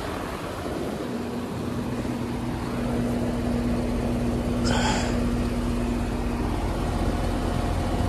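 Concord heat pump outdoor unit running in heat mode: a steady hum from the compressor and fan, with a humming tone for most of the time. There is a brief rustle or knock about five seconds in.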